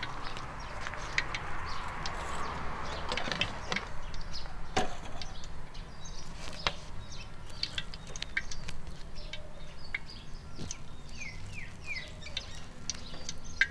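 Scattered small knocks and clicks, with three short falling bird chirps near the end.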